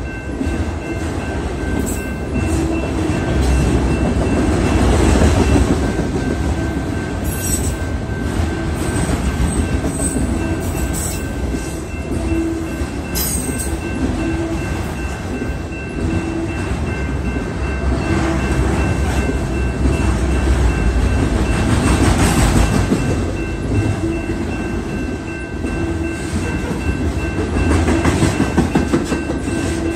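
Freight train of enclosed autorack cars rolling past at close range: a steady rumble and clatter of steel wheels on the rails that swells louder several times as trucks go by. A grade-crossing warning bell rings steadily over it.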